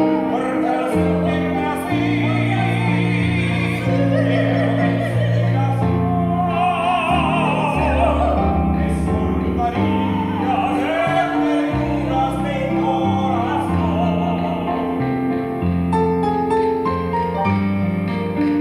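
Soprano and tenor singing a Dominican criolla duet in operatic style with vibrato, accompanied on a digital piano. The voices stop near the end, leaving the piano playing alone.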